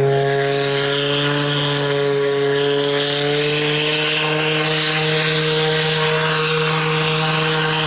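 A steamship's steam whistle blowing one long, steady blast with a hiss of steam over it, its pitch rising slightly over the first few seconds before it cuts off near the end.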